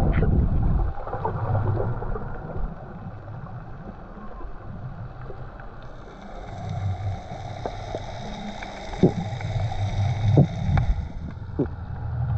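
Underwater sound picked up by a snorkeler's camera: a muffled low rumble of moving water with a few sharp clicks late on, and a faint steady high whine in the middle.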